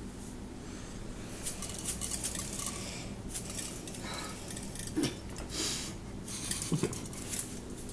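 Cupcake-decorating sounds: a knife scraping and spreading frosting on cupcakes in a metal muffin tin, with scratchy bursts and a couple of light knocks on the tin.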